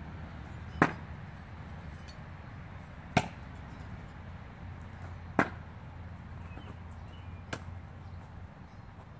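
Thrown knives striking a wooden target round: three sharp thunks roughly two seconds apart, then a fainter click near the end.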